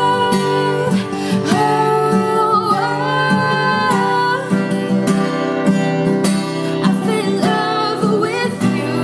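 Music: a song with plucked acoustic guitar and a singing voice.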